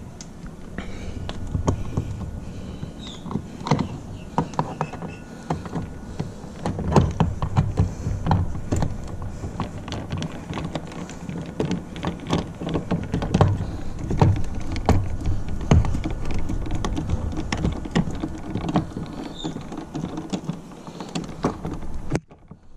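Hand screwdriver driving a screw into a Toyota Prius's plastic door trim panel, with handling of the trim: an irregular scatter of sharp clicks and knocks over a low steady rumble.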